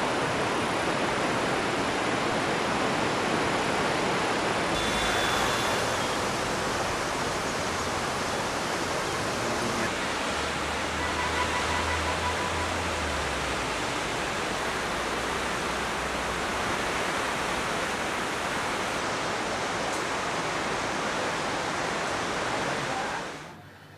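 Steady, loud rushing of a river in flood, an even full-range roar. A low hum joins it briefly about halfway through, and the roar cuts off suddenly near the end.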